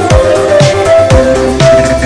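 Electronic dance music with a steady beat: deep kick drums dropping in pitch about twice a second, bright percussion hits above, and a synth melody of held notes.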